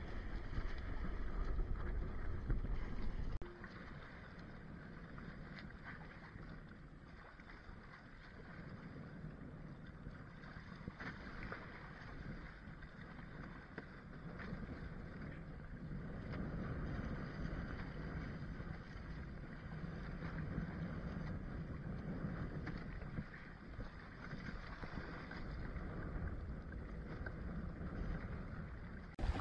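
Water rushing and splashing along the hulls of a Hobie Tandem Island sailing kayak under sail through choppy sea. Wind buffets the microphone with a low rumble for the first three seconds or so, then the sound drops to a quieter, steady wash of water.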